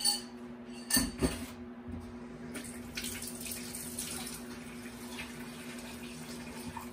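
A couple of knocks near the start, then from about two and a half seconds in, water runs steadily from a kitchen tap into the sink. A steady low hum sits underneath.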